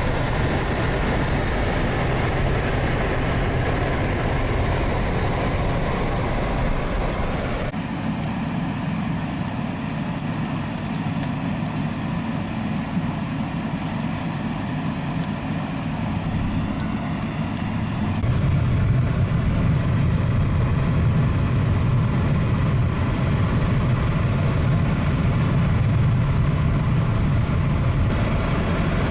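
Steady motor vehicle engine and road noise, with a low rumble. The sound changes abruptly twice, about eight and eighteen seconds in.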